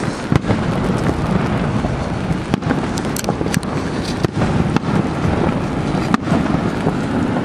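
Aerial fireworks going off, a string of sharp bangs and crackles at irregular intervals, over the steady low roar of Niagara Falls.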